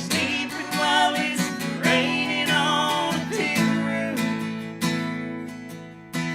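Acoustic guitar strumming a country song, with a long sung note held over it for about the first four seconds; then the guitar continues alone.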